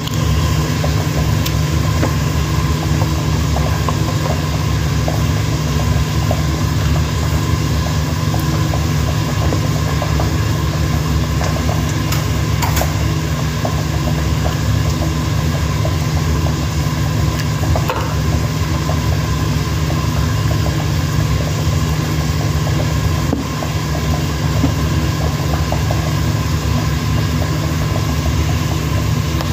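A steady machine hum, like a fan or motor, with many small crackles of the meat sauce sizzling and bubbling in the pan.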